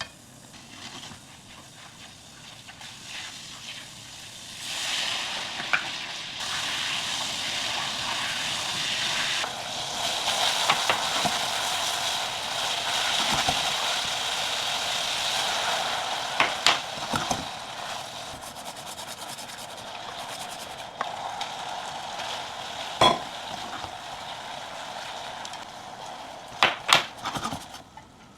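Food sizzling in oil in a frying pan while it is stirred, with scattered clicks and knocks of a utensil against the pan. The sizzle starts about five seconds in and dies down near the end.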